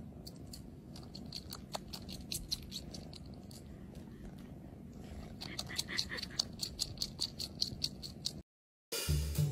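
Calico cat purring steadily with a pacifier in its mouth, over light rapid clicks of sucking, about four a second, in two spells. The purring cuts off shortly before the end, and music begins.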